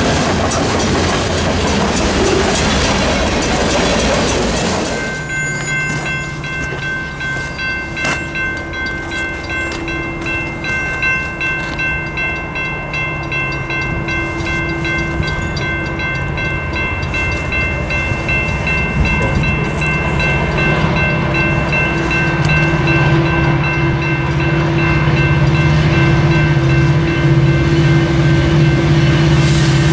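Freight cars rumbling past for about five seconds. Then grade-crossing bells ring steadily while an approaching diesel freight locomotive's drone grows louder toward the end.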